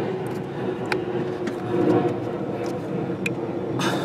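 A few faint plastic clicks and handling sounds as a wiring connector is pushed onto an ignition coil. Underneath is a steady background hum.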